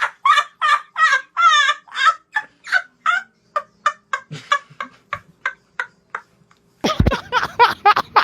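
A man imitating a clucking hen with his voice: a fast run of short clucks that slows and fades over about six seconds. After a short pause, a thump and a fresh burst of clucking come near the end.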